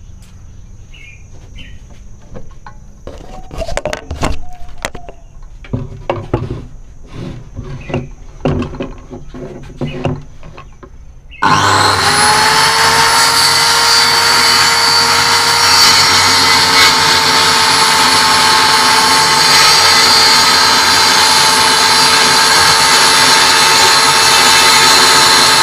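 Scattered knocks and clicks, then about eleven seconds in a Pumpkin 7-inch corded circular saw switches on. Its motor winds up within a second and runs at a steady, even whine.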